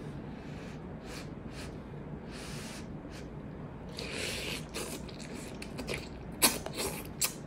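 Blowing on a lifted mouthful of hot instant noodles a few times to cool them, then slurping the noodles in, with the loudest slurps near the end.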